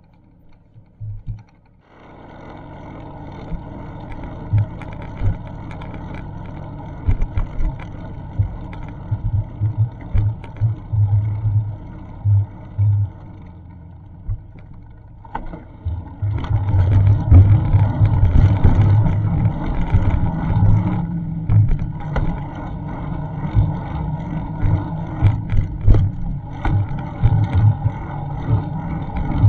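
Wind buffeting the microphone of an action camera on a moving bicycle, irregular low thumps over a steady rush of road noise. It starts about two seconds in and gets louder about halfway through.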